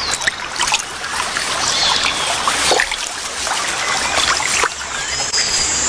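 Water splashing and trickling as a jaguar swims through the river.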